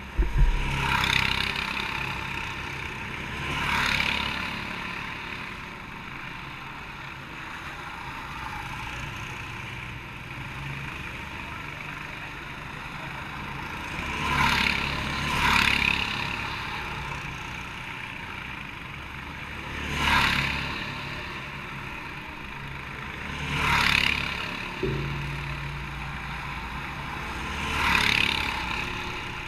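Racing karts passing one at a time, each engine note swelling and fading over about a second: seven passes, two close together near the middle. A steady low rumble runs underneath, and a sharp knock comes right at the start.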